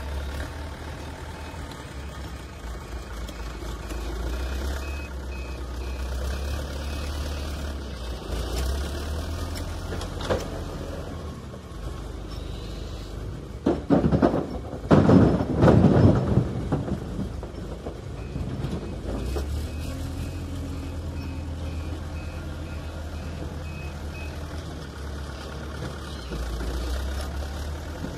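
Backhoe loader's diesel engine running steadily, with a loud clattering crash of concrete blocks tumbling from the front bucket into a tractor trolley about halfway through. A reverse alarm beeps at times.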